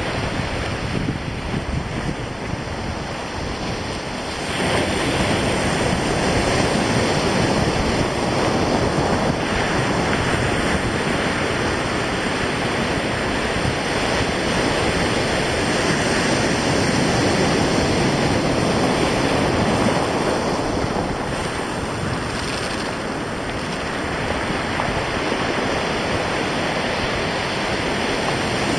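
Sea surf breaking on a stony beach, with wind blowing across the microphone. The sound swells about four seconds in and stays louder.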